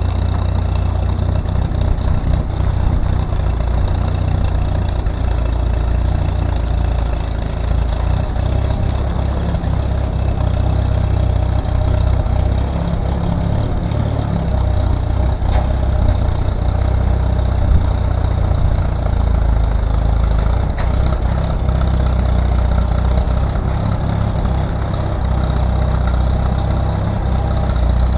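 An engine idling steadily, with a low, even sound.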